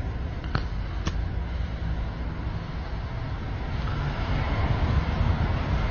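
Steady outdoor background rumble and hiss, like distant traffic or wind on a phone microphone, with two light clicks about half a second apart near the start. The hiss grows louder in the second half.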